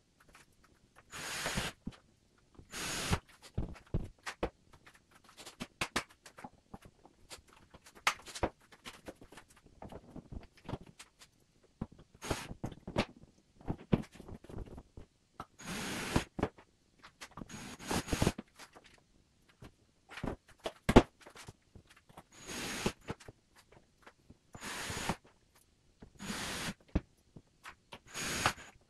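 Work sounds from hanging wall cabinets: about a dozen short noisy bursts a second or two apart, mixed with many scattered clicks and knocks.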